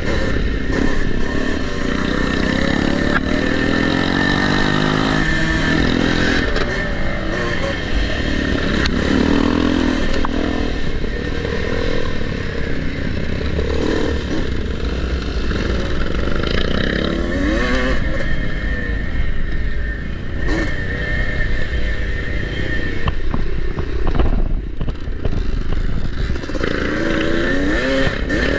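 1984 Yamaha IT200's single-cylinder two-stroke engine revving up and falling back over and over as the bike is ridden round a grass motocross course. Other dirt bikes are running close by, and there are a few sharp knocks over rough ground.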